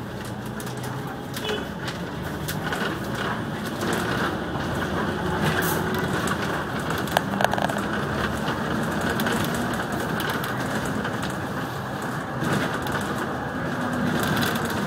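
Double-decker bus driving, heard from its upper deck: a steady engine hum and road noise that grows louder over the first few seconds as the bus picks up speed. There are two sharp clicks or rattles a little past the middle.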